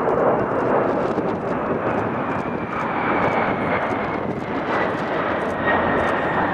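Four jet engines of the Boeing 747 Shuttle Carrier Aircraft making a steady rush of noise as it flies low past, with a faint whine sliding slowly down in pitch.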